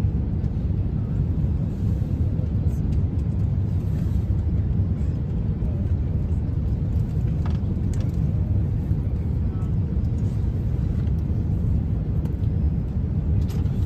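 Steady low cabin rumble of an Airbus A350 in flight on its descent to land: engine and airflow noise heard inside the passenger cabin.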